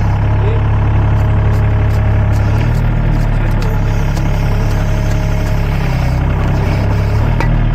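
Sany mini excavator's diesel engine running steadily while the hydraulics lift a bucket of soil from the trench. The engine note shifts about two and a half seconds in and again near the end as the load changes.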